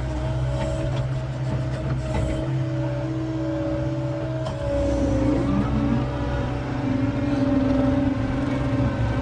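John Deere 333E skid steer's diesel engine and hydraulics running steadily with a constant whine. About halfway through, the pitch shifts and it gets a little louder as the machine works harder.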